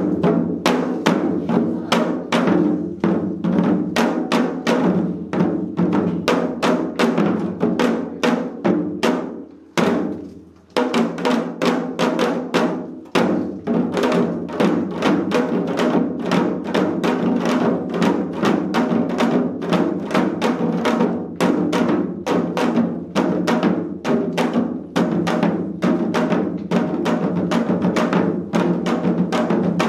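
Four janggu, Korean hourglass drums, played together in a seol-janggu piece: a fast, dense run of drum strokes that breaks off for a moment about ten seconds in, then picks up again.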